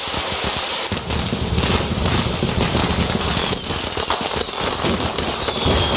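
A long string of firecrackers going off in a dense, continuous crackle of pops. A faint high whistle that falls in pitch joins near the end.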